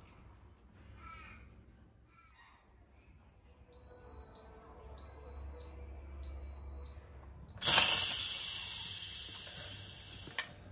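Instant Pot Duo Nova pressure cooker beeping three times at the end of its cooking cycle, with a fourth beep cut short. Then steam hisses out of the pressure-release valve, loud at first and fading, ending in a click.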